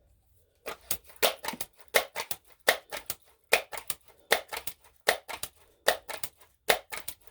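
Daisy Powerline 901 multi-pump air rifle being pumped: the forearm lever is worked over and over, a clacking stroke of two or three sharp clicks about every 0.8 seconds as the rifle is charged with air for a shot.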